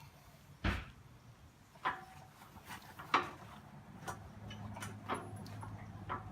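A few separate sharp metal clicks and knocks, roughly one a second, from hand work with tools on a backhoe bucket connector's bolts and pins. A low steady hum comes in about four seconds in.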